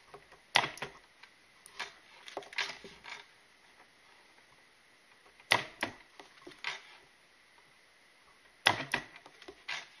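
A DIY 12-volt spot welder firing on an 18650 cell: three loud sharp snaps, each followed by a flurry of smaller clicks, as the relay trips and the car starter solenoid contactor dumps battery current through the probes into the weld.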